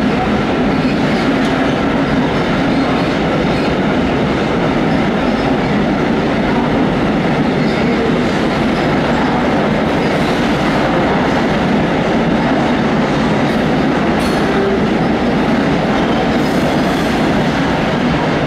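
Freight train of coal hopper wagons rolling past steadily, a continuous rumble of wheels on rail with no breaks or distinct knocks.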